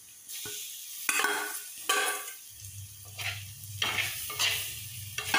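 Spoon stirring boiled lemon halves into hot, frying pickle masala in a clay pot: repeated scraping strokes every half second to a second over a low sizzle.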